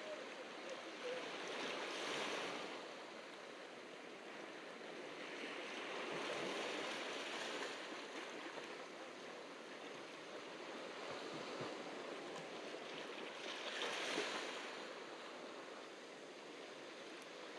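Ocean surf breaking and washing up on a beach. It is a steady rush that swells three times, about two, seven and fourteen seconds in.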